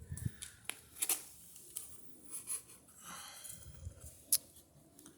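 Hands handling a foam RC model airplane: a few sharp plastic clicks, the loudest near the end, and faint rubbing and rustling.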